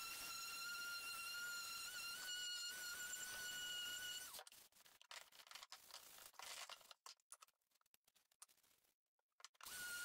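Electric detail sander running with a steady high-pitched whine as it sands painted wood, stopping about four seconds in. Then faint, irregular scratching of a hand sanding sponge on the wood, and the sander starts up again at the very end.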